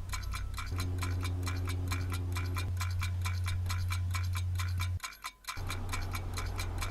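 Clock ticking steadily, several quick ticks a second, over a low hum that cuts out briefly about five seconds in.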